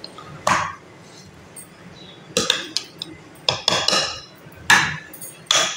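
A steel slotted spoon knocking and scraping against a glass blender jar and steel bowls as churned butter is scooped out. The knocks come irregularly, about eight of them, some in quick pairs.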